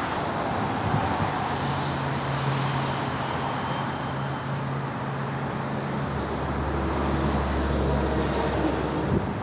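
A distant engine drones steadily. About six seconds in, its note shifts lower and grows stronger.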